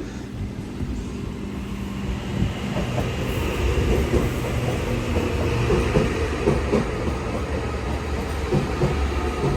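Three-car electric passenger train running through the station: a steady rumble with the wheels clicking over rail joints, getting louder over the first few seconds.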